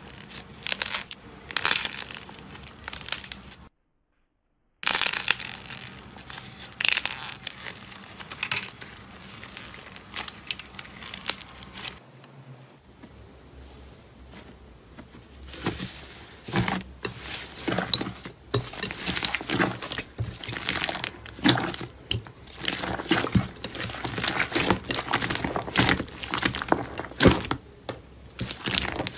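Hands squeezing, tearing and pressing slime and foam clay, making irregular crackling and crinkling sounds. A brief total silence about four seconds in; the crackling is softer in the middle and denser and louder over the second half.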